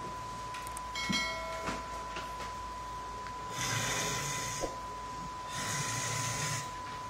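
A steady 1 kHz test tone from a television showing colour bars. Over it, two long snores from a man asleep on the floor, about halfway through and again near the end. About a second in there is a short click and chime from a subscribe-button animation.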